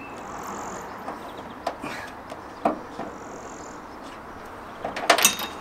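Scattered light clicks and knocks of parts being worked loose by hand under a raised car bonnet, with a louder run of clicks near the end.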